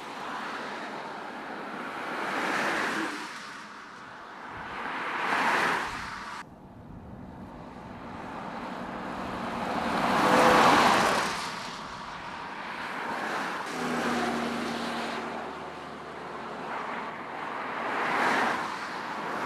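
Road traffic passing at speed: cars and a truck go by one after another, each a rising and fading rush of engine and tyre noise. The loudest pass, a semi-truck, comes about ten seconds in, and one pass breaks off abruptly about six seconds in.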